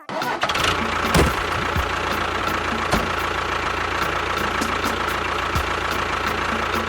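Engine running steadily at idle: a low rumble with a steady whine on top and a few scattered knocks.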